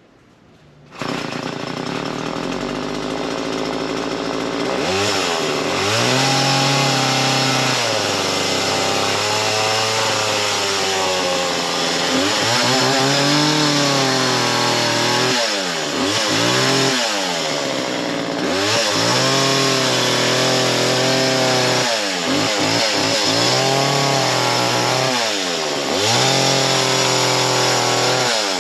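Small chainsaw: its engine cuts in suddenly about a second in and runs at a steady lower pitch, then from about five seconds on revs up and down again and again.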